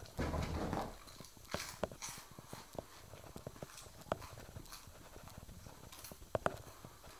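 A pet lop-eared rabbit hopping across sofa cushions. It opens with a short burst of muffled thumps as it bounds along, then scattered light taps and scratches as its paws move on the upholstery.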